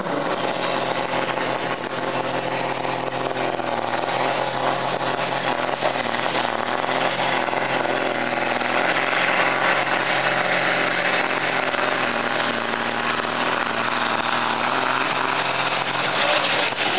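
Diesel engine of a pulling tractor running hard at full load as it drags a weight sled down the track, a loud, steady engine sound throughout.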